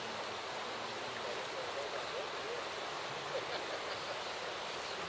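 Steady rush of flowing river water, with faint distant voices.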